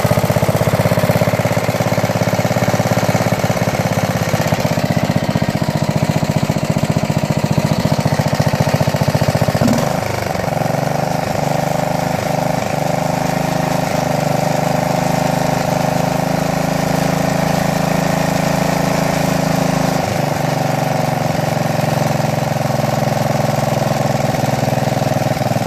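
Craftsman Yard Bug's 10 hp Briggs & Stratton engine running steadily just after starting, on a newly fitted aftermarket replacement carburetor. About ten seconds in, the engine note drops slightly and settles into a steady lower speed.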